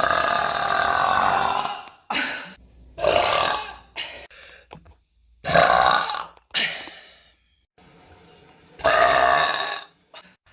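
A woman burping: one long burp of nearly two seconds, then several shorter burps with short pauses between them.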